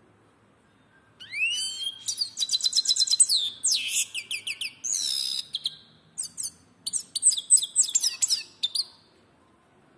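European goldfinch singing: one long, rapid twittering song of quick high notes and slurs, starting a little over a second in and stopping about a second before the end.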